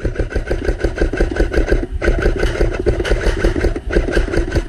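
Airsoft electric rifle firing on full auto, a loud, rapid, even chatter of shots over a steady motor whine, with a short break about two seconds in and a sudden stop near the end.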